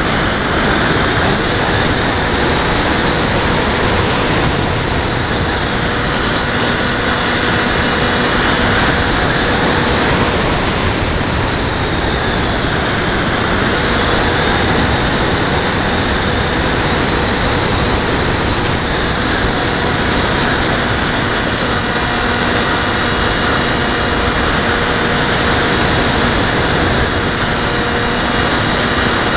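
Radio-controlled model aircraft's motor and propeller heard from a camera on board, under heavy wind rush over the microphone. A high thin whine slowly rises and falls in pitch several times as the plane flies.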